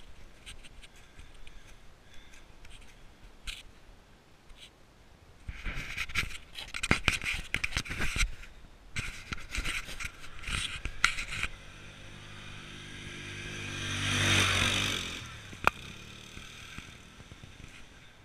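Scraping, rubbing and clicking right at the microphone for several seconds. Then a distant ATV engine swells to a peak and fades away about four seconds later.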